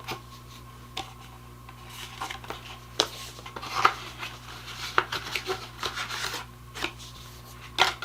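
Items and packaging being handled: light rustling with scattered sharp clicks and taps, over a faint steady hum.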